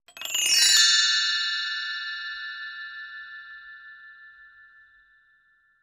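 A chime sound effect: a quick shimmering run of bright bell tones in the first second, then the tones ring on and fade slowly away over about five seconds.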